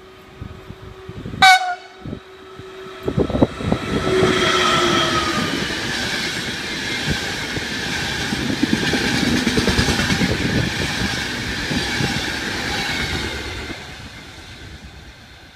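Electric-hauled Intercity passenger train running through a station at speed. A short, sharp horn blast comes about a second and a half in. Then a tone drops in pitch as the locomotive goes by, followed by about ten seconds of wheels clattering over the rail joints, which fades near the end.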